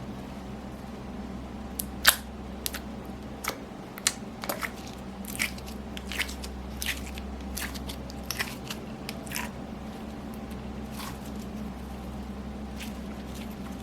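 Slime being pressed and worked by hand, giving a run of sharp, irregular pops and clicks as trapped air bursts, the loudest about two seconds in. The pops die away after about nine seconds, leaving a steady low hum.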